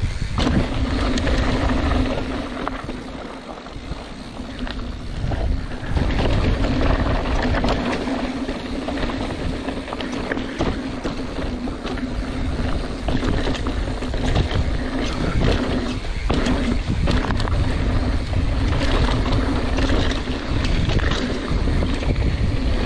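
Mountain bike descending a dry dirt trail: wind rushing over the camera's microphone, tyres on loose dirt and rock, and the bike rattling continuously over bumps.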